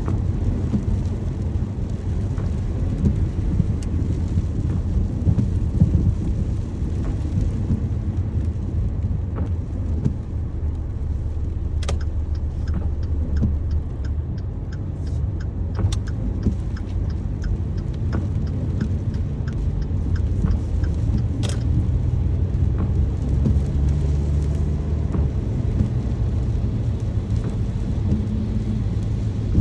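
Steady rain with a continuous low rumble beneath it and a few scattered sharp taps, the loudest about twelve seconds in and again about twenty-one seconds in.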